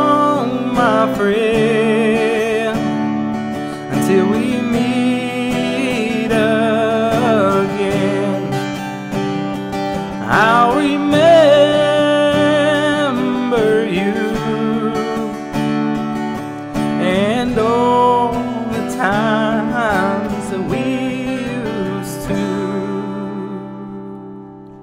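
Acoustic guitar strumming chords under a wordless sung melody that wavers in pitch. The music fades down over the last few seconds.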